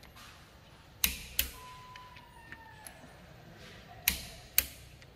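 Click-type torque wrench tightening connecting-rod cap bolts, giving two pairs of sharp clicks, about a second in and again about four seconds in: the wrench reaching its set torque.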